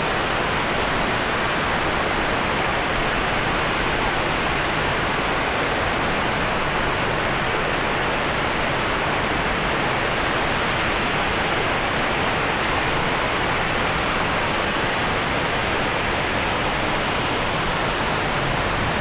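Waterfall: water falling and rushing in a loud, steady, unbroken roar of noise.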